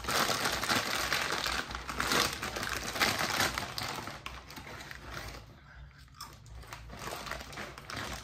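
Plastic bag of tortilla corn chips crinkling as it is handled and opened, loud and dense for the first half, then fainter scattered crinkles.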